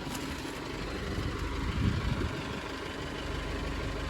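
A motor vehicle's engine idling with a steady low rumble and an even pulse, which grows more regular about three seconds in.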